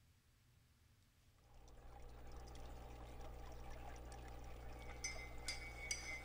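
Aquarium water trickling and bubbling with a low hum, fading in about a second and a half in. Near the end a high ringing tone comes in with a few light clinks.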